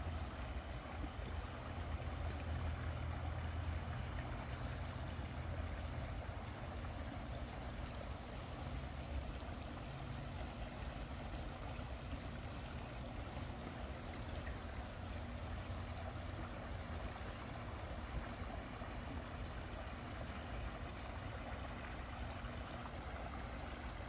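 Water of a shallow woodland creek running over a low line of rocks: a steady rush of moving water, with a low rumble underneath.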